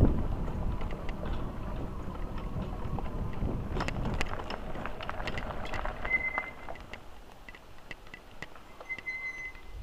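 Wind rumbling on the microphone with scattered clicks and rattles. The rumble dies down about two-thirds of the way through, leaving faint ticks and two short high squeaks.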